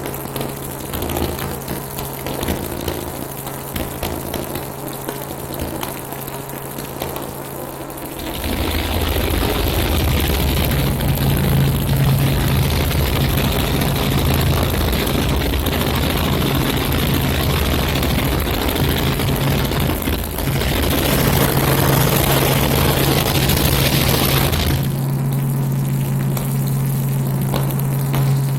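Helicopter engine and rotor noise: a steady low hum. A louder rushing noise swells in about eight seconds in and drops away again a few seconds before the end.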